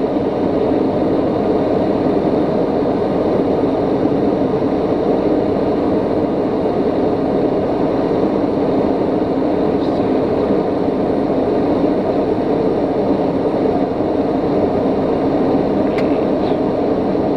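Cockpit noise of a TBM 850's Pratt & Whitney PT6A turboprop engine and propeller, a steady, even drone heard from inside the cabin. The engine is throttled back to slow the aircraft on final approach.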